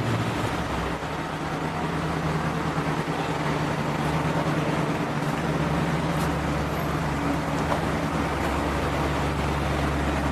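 Steady low engine hum of an idling motor vehicle amid street traffic noise, the deepest part of the hum growing stronger about halfway through.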